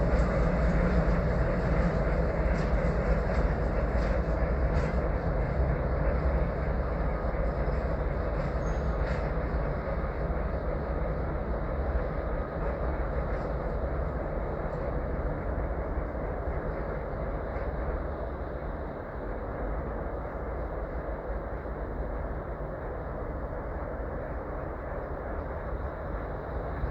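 ChME3 shunting diesel locomotive's engine running with a steady low drone, growing gradually quieter over the first two-thirds, then holding level. A few light clicks sound in the first ten seconds.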